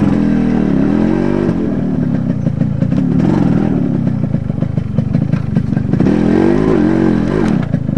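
Yamaha RX100's two-stroke single-cylinder engine running as the motorcycle is ridden slowly down a rocky dirt track. Its pitch dips and rises again with the throttle, most clearly about a second in and again near the end, with rattling from the bike jolting over stones.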